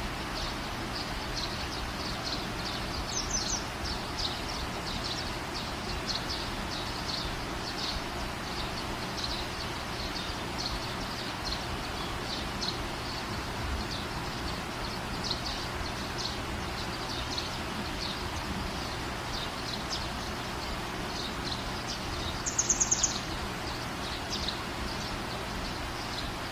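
Small birds chirping repeatedly over a steady background hiss. About two-thirds of the way through comes a louder run of about five quick high-pitched chirps.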